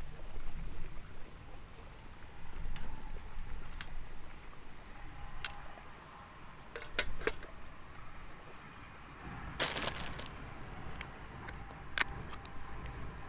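Light metallic clinks and rattles of a Trangia aluminium cookset being handled, a cluster of sharp clinks about seven seconds in, then a longer scraping rattle about ten seconds in as the frying pan goes onto the stove, and a final clink near the end.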